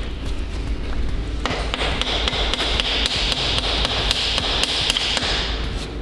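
Repeated light metal-on-metal tapping from hand tools working on an engine block, with a steady hiss through the middle few seconds.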